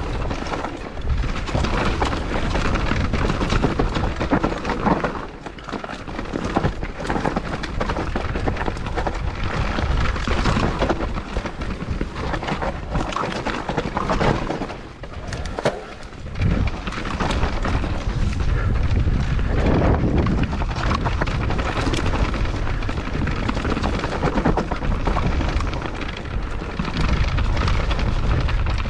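Mountain bike being ridden over rough trail: wind buffeting the bike-mounted or body-worn camera microphone, with tyres rolling over dirt and the bike rattling and knocking over bumps. Two short lulls come about six and sixteen seconds in.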